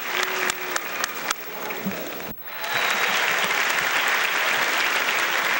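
Audience applauding, with sharp single claps standing out at first; the sound drops out abruptly for a moment about two seconds in, then dense, even applause resumes.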